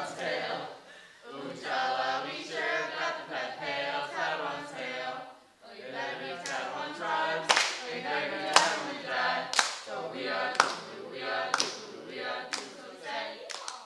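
A small group singing a song together. From about six seconds in, hand claps keep time about once a second.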